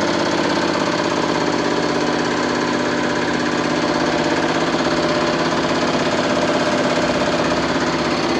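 New Holland CX8080 combine's hydrostatic hydraulic pump and hydraulic motor running steadily on a test bench during break-in after repair, turning in reverse. The sound is a steady, even machine hum with a cluster of constant tones.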